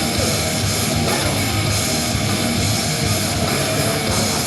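Loud background rock music with heavy guitars, playing in a hall.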